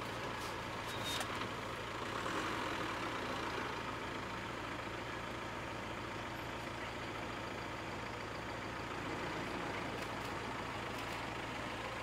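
Safari jeep engine idling steadily, a low even hum, with a few light clicks.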